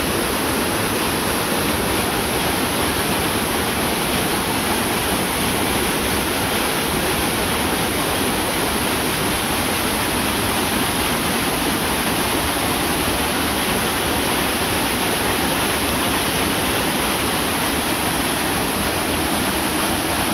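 Waterfall pouring down a rock face and splashing at its foot: a steady, unbroken rush of water.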